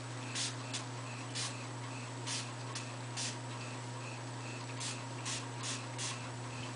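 About ten faint, short spritzes from a trigger spray bottle of skin application solution, spaced irregularly, over a steady low hum.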